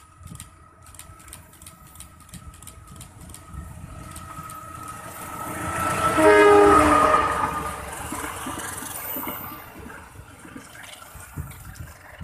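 GE CC201 diesel-electric locomotive hauling a train of coaches approaching and passing close by: the engine's rumble and a high steady whine build to a peak about six to seven seconds in, then fade as the train runs away.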